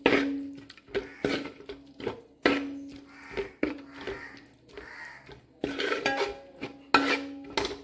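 Steel spoon scraping and clinking against a stainless steel pot while stirring thick curry masala, about once a second, each stroke leaving a brief ring from the pot.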